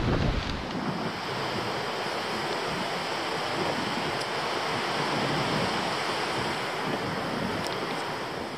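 Steady rushing of wind over the microphone of a camera riding on a moving e-bike. A heavier low buffeting in the first moment cuts off, leaving an even hiss.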